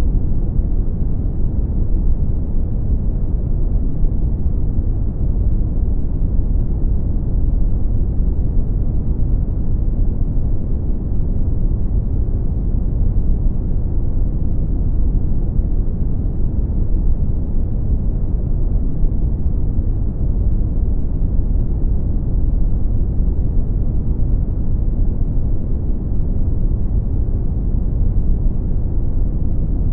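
Brown noise: a steady, deep rumbling hiss with its energy in the low end, unchanging throughout.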